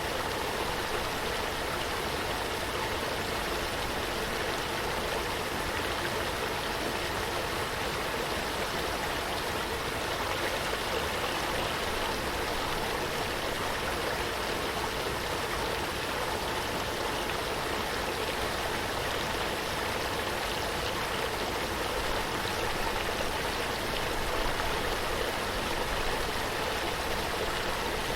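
Running water flowing steadily, an even unbroken rush.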